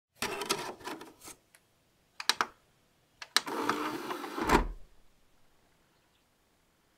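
Disc drive mechanism working: a run of clicking and rattling, two sharp clicks, then a rattling whir that ends in a low thump about four and a half seconds in.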